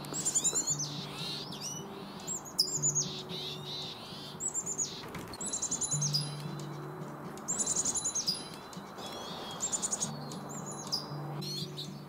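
Small songbirds calling: short runs of high, quick chirping notes repeated about every second and a half, over soft background music.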